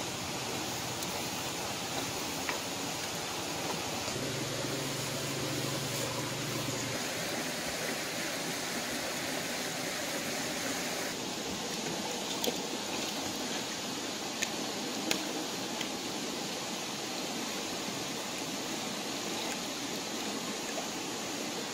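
Steady rushing of a shallow rocky stream, with a few sharp clicks about halfway through.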